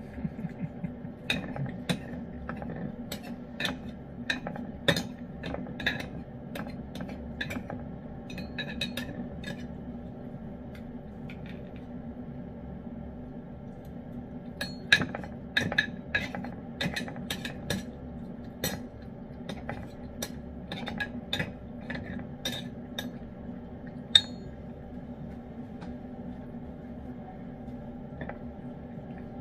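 Lynx point Siamese cat eating wet pâté cat food from a spoon and a ceramic dish: irregular sharp clicks and clinks of mouth, spoon and dish. They come in two busy spells, with a quieter stretch about ten seconds in and again after about twenty-five seconds.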